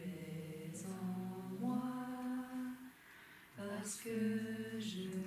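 Unaccompanied singing of a slow meditation song, long held notes sung in phrases, with a short breath pause about three seconds in before the next phrase.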